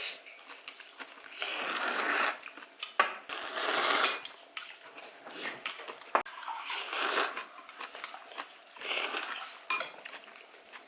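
Dishes and cutlery clinking and clattering in several short spells, with sharp clicks between.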